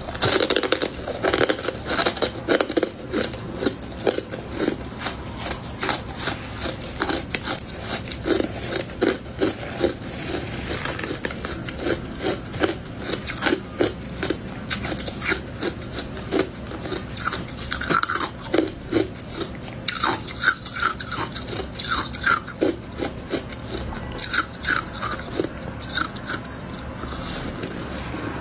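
Close-miked biting and chewing of powdery freezer frost ('snow ice'): a long run of short, sharp crunches, one after another.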